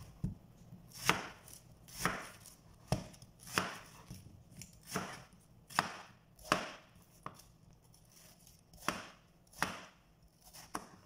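Kitchen knife cutting through watermelon and knocking on a plastic cutting board: about a dozen sharp chops at an even pace of roughly one a second, with a short pause about three quarters of the way through.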